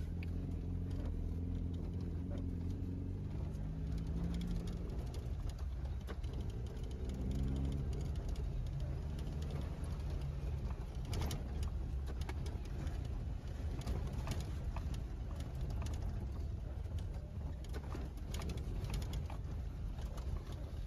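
Maruti Gypsy's engine running as it drives, heard from inside the cabin: a steady low drone whose note rises twice in the first eight seconds as it pulls. Scattered knocks and rattles from the ride over the rough snowy road, more of them in the second half.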